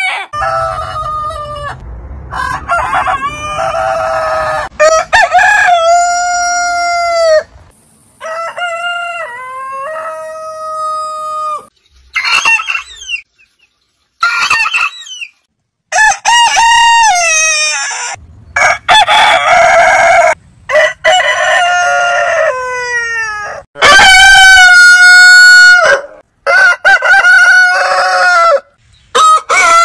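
Roosters of several breeds crowing one after another, about ten long cock-a-doodle-doos in a row, each held and then falling off at the end. Hens cluck in places between the crows.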